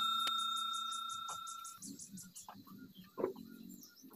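A bell chime from a subscribe-button overlay rings out and fades away over about the first two seconds. After that come faint small rustles, a soft knock a little over three seconds in, and a faint high ticking about four times a second.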